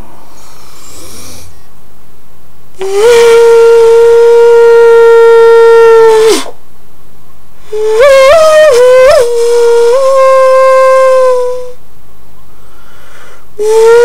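Human beatboxer's voice making long, steady whistle-like tones: one held note for about three seconds, then after a short gap a note that jumps up and down in pitch a few times before holding steady, and another beginning right at the end.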